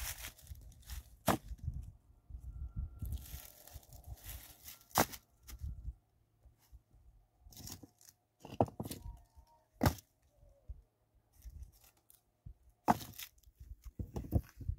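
Loose rocks being lifted and set into a dry-stone wall: several sharp clacks of stone knocking on stone, with scraping and rustling of gravel and dry grass underfoot between them.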